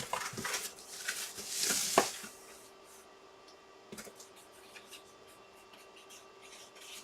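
Packaging being handled: crinkly rustling in the first two seconds, ending in a sharp click or snap about two seconds in, then quieter handling with a few small clicks.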